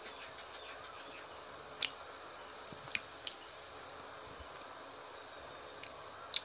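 Close-up wet mouth sounds of a person eating rice and fish curry by hand: chewing, with four short sharp lip smacks over a steady background hiss.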